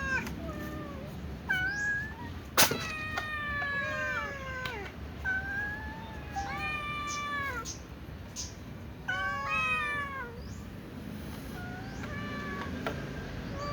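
Small cat meowing over and over, drawn-out meows that mostly fall in pitch. About two and a half seconds in there is one short, sharp burst, the loudest sound in the stretch.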